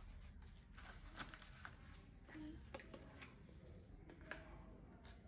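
Near silence: room tone with a few faint, scattered clicks and rustles of small objects being handled.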